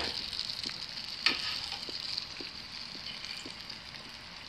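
Oliebollen deep-frying in a pot of hot oil: a steady sizzle that grows a little quieter near the end. About a second in, metal tongs clink once against the pot, and a few faint pops sound.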